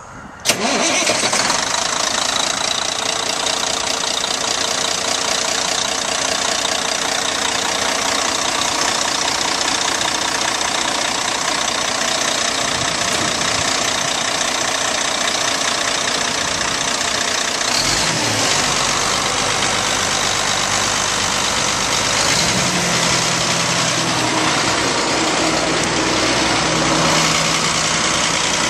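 Caterpillar C-10 inline-six diesel in a Kenworth T800 concrete mixer truck starting up about half a second in, then idling steadily.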